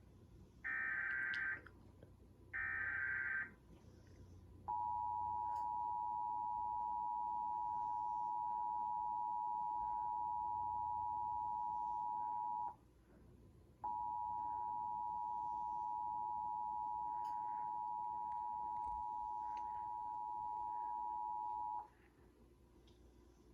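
Emergency Alert System tones: the last two of three short digital header bursts, then the two-tone EAS attention signal held steady for about eight seconds, broken off for about a second, and held steady again for about eight seconds before cutting off.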